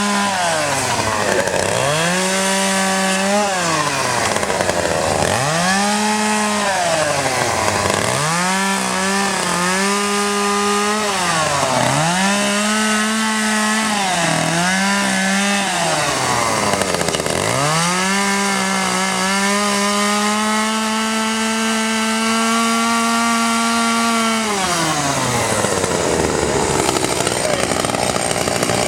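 Gas chainsaw carving wood, revved up and down in short bursts of a second or two, then held at full throttle for about six seconds before dropping back near the end.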